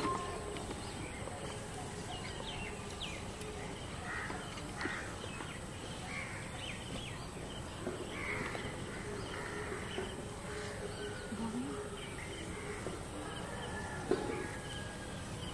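Birds cawing, crow-like, a short call every second or two over steady outdoor background noise.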